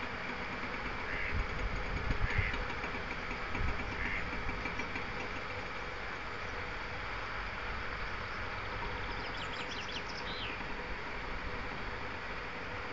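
Steady hum of wastewater treatment plant machinery, such as a clarifier's travelling scraper bridge, with a constant noise of water. A mallard quacks softly about three times in the first four seconds, and there are a few low bumps about two seconds in. A quick run of high chirps comes near the end.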